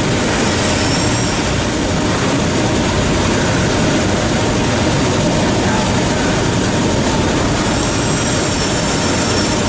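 Dama HDC-2020 high-speed drilling center surface milling: a steady, unbroken rush of machining noise with a constant high-pitched whine.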